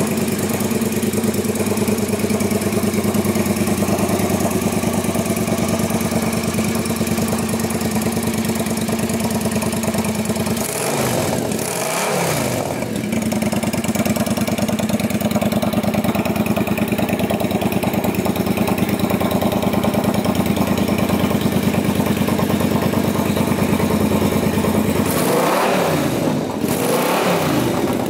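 Triumph America parallel-twin motorcycle engine idling steadily, with the throttle blipped so the revs rise and fall once about halfway through and twice near the end.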